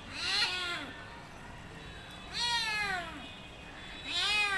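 Domestic cat meowing three times, each meow rising and then falling in pitch, about two seconds apart.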